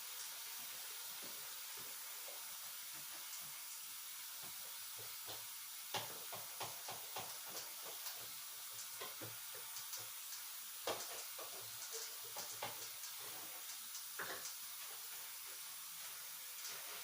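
Scattered light knocks and clicks of bathroom cleaning, things being handled and set down, over a steady hiss.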